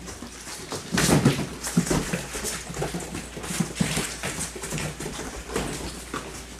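Six-week-old Labrador Retriever puppies playing: short puppy growls and many quick clicks and patters of paws on a bare floor, picking up and loudest about a second in.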